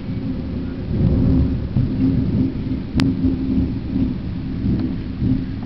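Thunder rumbling, swelling about a second in and rolling on, over the hiss of rain. A single sharp click about three seconds in.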